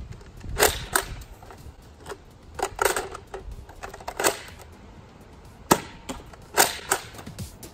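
Nerf Trilogy DS-15 spring-powered pump-action shotgun blaster being primed and fired with three darts loaded: a series of sharp plastic clacks and snaps, some in quick pairs, the loudest a little before the end.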